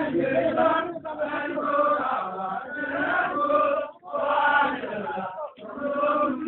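Men's voices chanting together in short phrases, with brief breaks between them.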